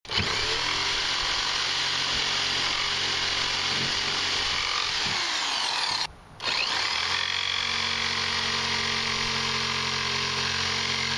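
Jigsaw cutting a notch into the corner of a wooden furring strip, the motor running steadily as the blade saws through the wood. It stops briefly about six seconds in, then starts up again.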